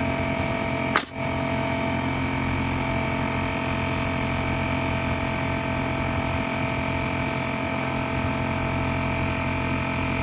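Metabo HPT pneumatic nail gun firing a single nail about a second in, a sharp crack, over the steady hum of a Bostitch air compressor running.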